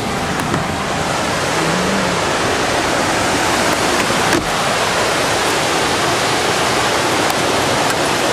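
Steady rushing of fast-flowing water, a constant loud hiss with no break, and one faint click a little after four seconds in.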